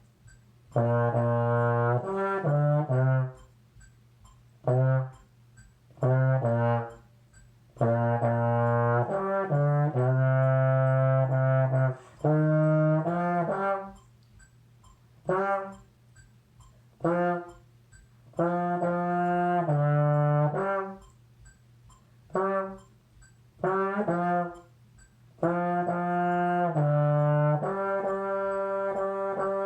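Solo trombone playing a melody in low, held notes, phrase by phrase, with short pauses of a second or two between phrases.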